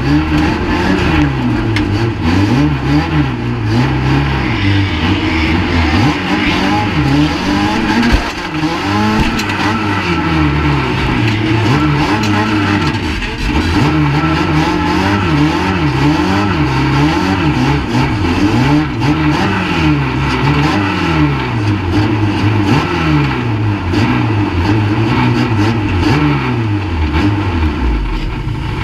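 Banger racing car's engine heard from inside the stripped cabin, revving hard, its pitch sweeping up and falling back again and again. A single sharp bang about eight seconds in.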